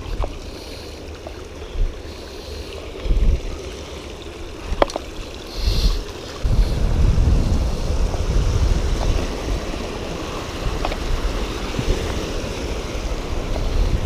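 Water rushing over a low concrete weir on a rocky river, getting louder about halfway through, with wind buffeting the microphone in gusts and a few sharp clicks.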